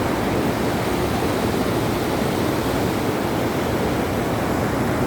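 Steady, loud rushing of a river in heavy flood, fast floodwater churning without a break.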